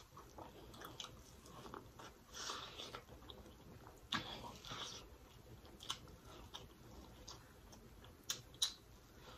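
Close-up mouth sounds of a person biting into and chewing boiled, sauce-coated corn on the cob: wet chewing, with louder bites about two and four seconds in and a few sharp clicks near the end.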